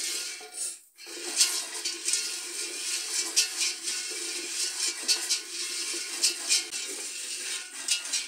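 Raw red-skinned groundnuts (peanuts) rattling and scraping against a dry aluminium pot as they are stirred with a wooden spoon for dry-roasting. There is a brief break about a second in, and the rattling cuts off at the very end.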